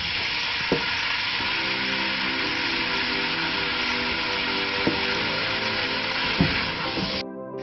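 Diced chicken sizzling in hot oil in a pot, stirred with a wooden spatula that knocks against the pot a few times. The sizzle cuts out briefly near the end.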